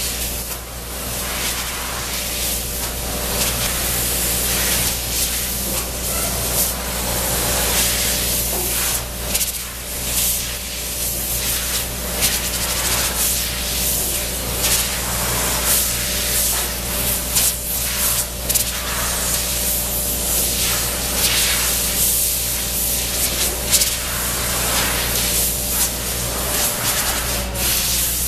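Compressed-air blow gun hissing in repeated bursts as styrene sheets are blown clean, over a steady low hum of shop machinery.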